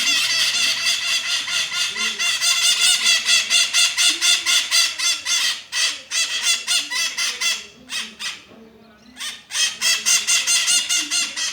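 Maritacas (small parrots) screeching in a fast, continuous chatter of shrill calls, which breaks off for about a second and a half past the middle and then starts again until near the end.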